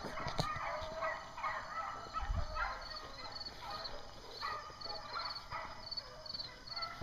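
A pack of beagles baying in overlapping, irregular bouts as they run a rabbit's trail: the cry of hounds on the scent.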